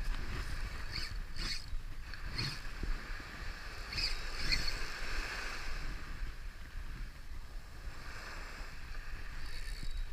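Wind rumbling on the microphone over a faint outdoor hiss, with a few short high-pitched chirps in the first half.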